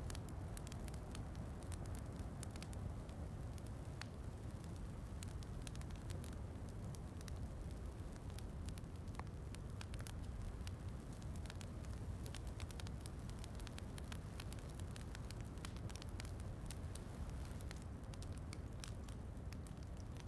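Wood fire crackling in a fireplace, with frequent small sharp pops scattered throughout over a steady low rumble, mixed with rain.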